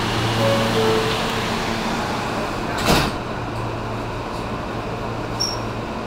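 Interior running noise of an R160B subway car with Siemens propulsion moving through a tunnel: a steady rumble under a low hum. One sharp bang comes about three seconds in.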